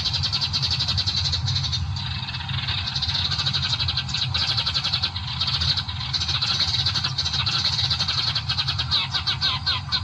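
A flock of small birds chirping in dense, rapid, overlapping calls, over a steady low hum.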